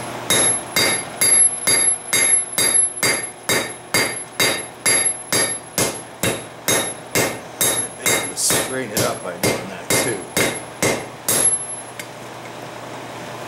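Hand hammer forging a red-hot steel ball peen hammer head on an anvil: steady, even blows about three a second, each with a bright ring from the anvil. The smith is hammering a step into the head. The blows stop shortly before the end.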